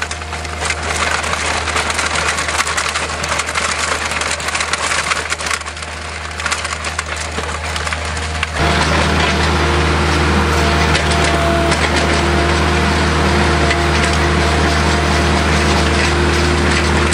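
Avant compact loader running with its hydraulic chain trencher digging, the chain teeth tearing through stony soil with a steady gritty crackle over the low machine hum. About halfway through, the hum gets louder and steadier.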